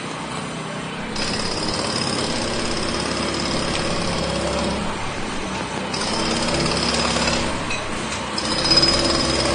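Pneumatic jackhammer breaking ground in three bursts. The first, long burst starts about a second in, and two shorter ones follow, over a steady low rumble.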